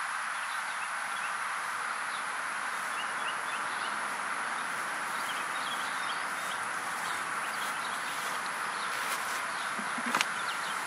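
Steady background hiss with faint, short high chirps scattered through it, and one brief knock about ten seconds in.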